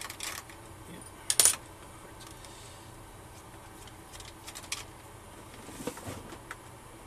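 Small metallic clicks and clinks of a screwdriver and screws on the underside of a Dell Inspiron N5110 laptop, with one sharp, bright clink about a second and a half in and a few lighter ticks later.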